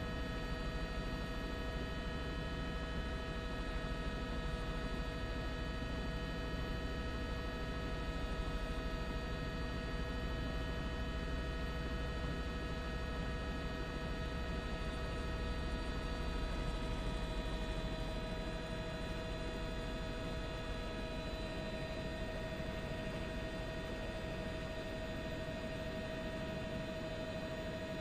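Steady cabin noise of a news helicopter picked up by the open microphone: a low rumble under a hum of several held whining tones, with no break.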